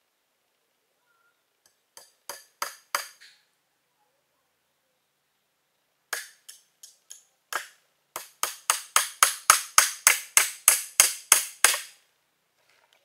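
A tool striking bamboo in sharp, ringing blows: a short run of about five, a few spaced strikes, then a fast even run of about sixteen at four to five a second.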